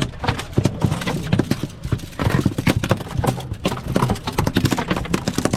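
A freshly caught fish flapping on the boat deck: a rapid, irregular run of knocks and slaps.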